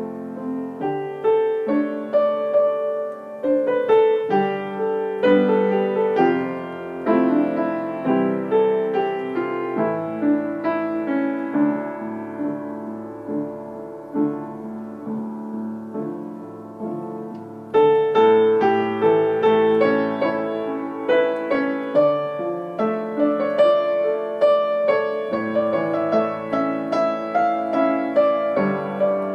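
Background piano music: a gentle melody of struck notes. It grows softer for a stretch in the middle and fills out again about two-thirds of the way through.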